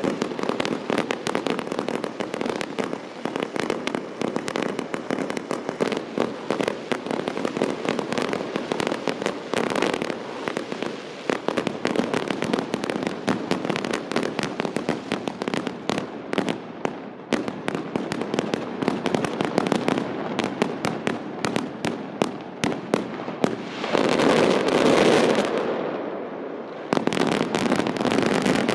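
Castillo fireworks display: a dense, continuous barrage of cracks and bangs from bursting shells and crackling stars. It swells louder twice near the end.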